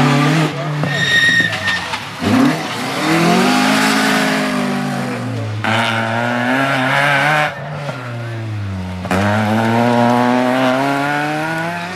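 Rally cars at full speed on a gravel stage: an Opel Manta's engine revving as it passes, then an Opel Astra's engine accelerating hard, its pitch climbing and dropping with each gear change and throttle lift, over tyre noise on the loose surface. A brief high whistle sounds about a second in.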